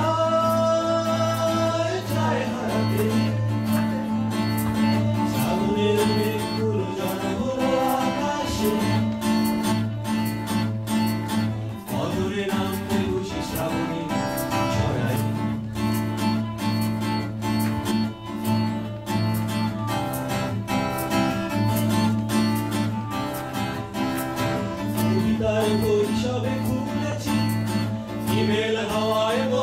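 Two men singing a Bengali song together, live through microphones, accompanied by acoustic guitar, with steady low notes held under the voices.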